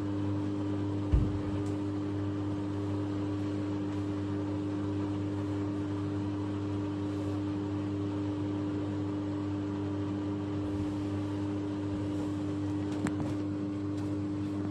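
Bosch Maxx 6 washing machine on its spin/drain programme, running with a steady, even hum that does not rise or fall in pitch. A single low thump comes about a second in.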